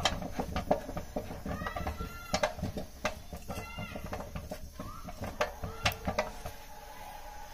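A long wooden spoon stirring and beating thick flour dough in a steel pot, giving irregular knocks and slaps against the pot. Several short hen clucks sound in the background.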